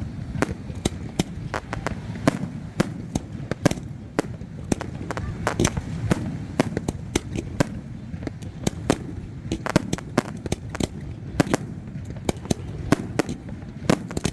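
Fireworks going off: a rapid, irregular string of sharp bangs and pops, several a second, over a low rumble.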